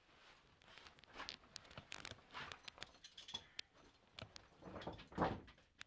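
Scattered scrapes, rustles and small clinks of a caver moving through a tight rock passage: the oversuit rubbing on rock and the harness gear clinking. The loudest scrape comes about five seconds in.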